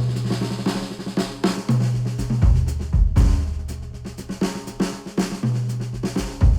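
Instrumental music with a drum kit keeping a steady beat over held bass notes, played through a headphone and picked up by microphones at the earcup.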